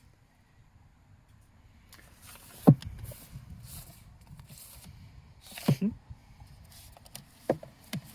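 Books sliding and rustling against each other on a wooden shelf, with several sharp knocks as they are pulled out and bump the wood; the loudest knock comes a little under three seconds in.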